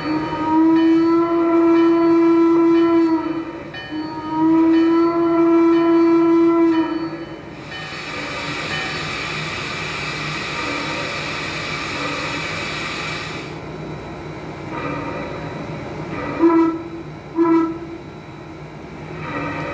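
Large-scale model steam locomotive's onboard sound system: two long steam whistle blasts on one steady pitch, a stretch of steam hiss, then two short whistle blasts near the end.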